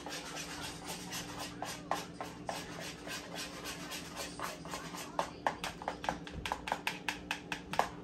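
A utensil stirring or whisking a mixture in a bowl: quick, irregular clicks and scrapes against the bowl, coming faster and sharper in the last few seconds before they stop.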